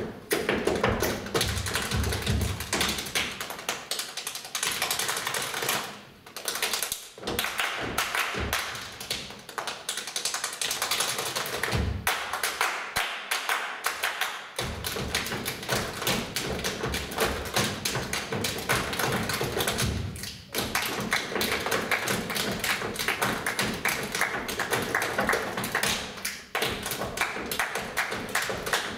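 Ensemble body percussion: hand claps and slaps on chest and body played in fast, interlocking rhythms by several performers. Deeper thumps sound near the start and again about twelve seconds in, with brief lulls around six and twenty seconds in.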